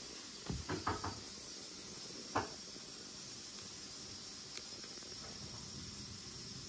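Handling sounds from a hand and a thin stick working fish on a wooden cutting board: a quick run of about four light knocks about half a second in, then one sharper knock a couple of seconds in, over a steady faint hiss.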